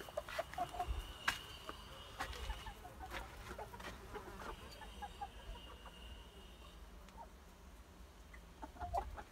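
Domestic chickens clucking quietly, a few short scattered clucks. A faint thin high tone comes and goes twice in the first part.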